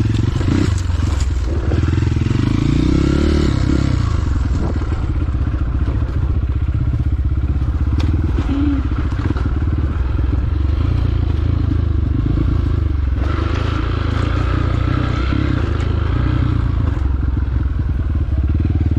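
Trail motorcycle engine running, revving up and down in the first few seconds, then pulling steadily.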